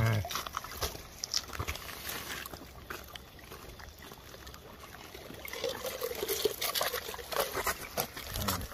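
Water trickling and dripping on wet rocks and gravel, with scattered small wet clicks and crackles as a landed stingray lies on the stones. There is a dull bump right at the start and another near the end.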